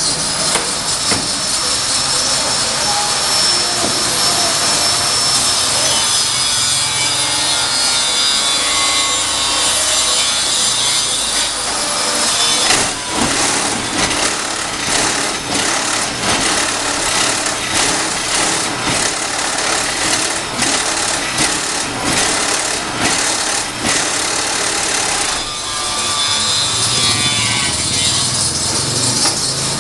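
Automatic paving-block machine running with a loud, steady clattering noise, dense with rapid knocks through the middle stretch and a faint gliding whine at the start and near the end.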